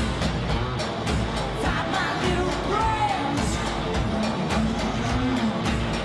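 Live rock music played loud through a festival PA: electric guitar over a steady beat, with a woman's voice singing.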